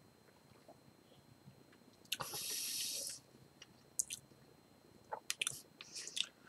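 A sip of beer from a glass, then a breathy exhale lasting about a second, followed by a scatter of short wet mouth clicks and lip smacks as the beer is tasted.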